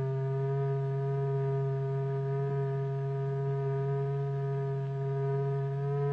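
A steady, unbroken electronic tone with a strong low fundamental and several fainter higher overtones: the sound signal that drives the vibrating material in a cymatics experiment. Its pitch steps up slightly near the end.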